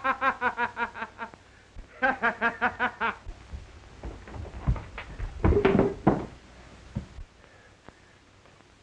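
A man laughing in rapid ha-ha-ha pulses, breaking off and then laughing again in a second burst. This is followed by a few seconds of a fistfight scuffle, with thuds and knocks of blows and bodies against furniture, loudest about five and a half seconds in.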